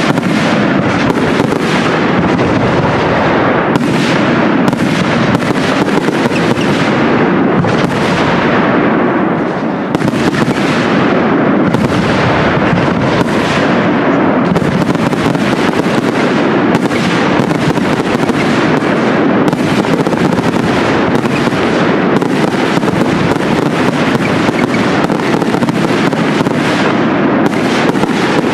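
Aerial fireworks display: shells bursting high in the sky in an unbroken barrage, many loud bangs overlapping in quick succession.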